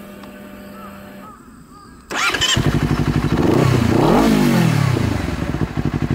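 Honda CBR250RR's parallel-twin engine starting about two seconds in, after a quieter stretch with a faint steady hum. It revs up once and back down, then runs with an even pulsing exhaust.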